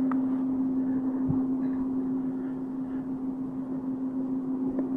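A steady low-pitched hum holding one unchanging tone, the unexplained strange sound that the recordists hear in the night sky. A brief low thump comes about a second in, and there are light clicks at the start and near the end.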